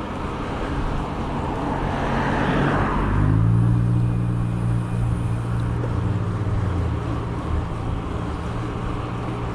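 Motor vehicle passing on the road: tyre noise swells over the first three seconds, then a steady low engine hum holds until near the end.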